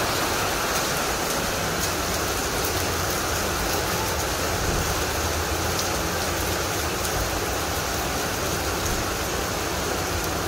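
Hail and rain falling steadily in a dense even hiss, small hailstones striking the tiled balcony floor with scattered faint ticks.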